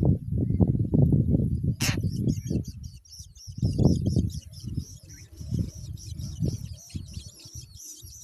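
Birds calling: high, rapid chirps from small birds, most frequent in the second half, over a run of uneven low sounds, with one sharp click about two seconds in.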